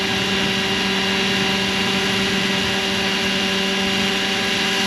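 Roban 600-size Hughes MD500 scale RC helicopter hovering, its rotors and drive making a steady whine at a constant head speed over a steady hiss.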